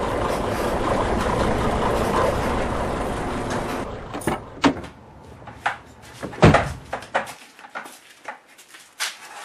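Garage door opener running with a horrible noise: a loud, steady mechanical racket that dies away about four seconds in. A string of sharp clanks and knocks follows, the loudest about six and a half seconds in, then a few lighter clicks.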